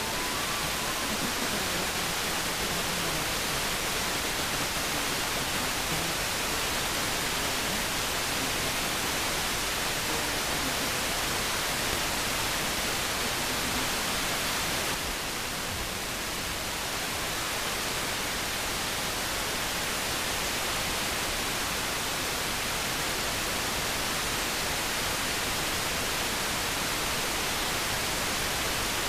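Steady FM radio receiver hiss: the weak, distant station has faded out beneath the static, with a slight change in the noise about halfway through.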